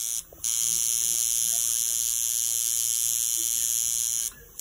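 A small handheld electric tool buzzing steadily, with short stop-start pauses: it cuts out briefly just after the start and again near the end.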